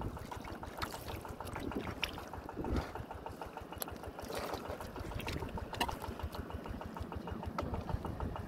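Hands and bare feet working through shallow muddy water, sloshing and squelching, with a few short sharp clicks over a steady low rumble.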